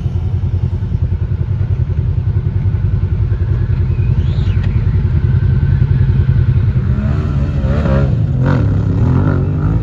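Side-by-side UTV engine running steadily with a deep, pulsing rumble, a brief rising whine about four seconds in, and voices near the end.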